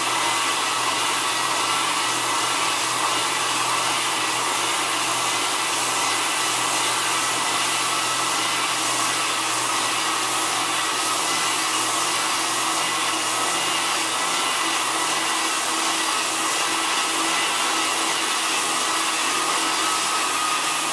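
Hardwood floor edger sanding along the edges of the floor while hooked to a dust-containment vacuum, both motors running steadily with a constant whine.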